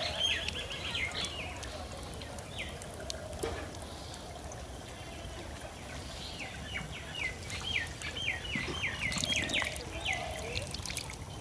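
A bird calls in quick runs of short falling chirps, once at the start and again in the second half. Near the end, water trickles as it is poured from a mug into a small electric water pump to prime it before starting.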